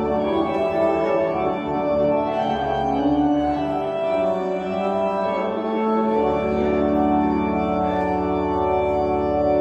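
Church organ playing slow, held chords, with a deep bass note sounding under much of the passage.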